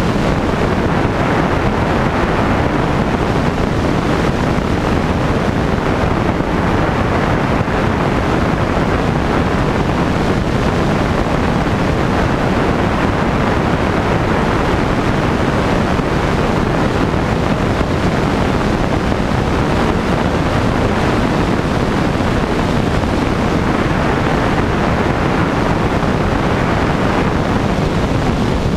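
Single-engine light aircraft in cruise: the propeller engine's drone mixed with heavy wind rush on an exposed microphone, as a steady, unbroken noise.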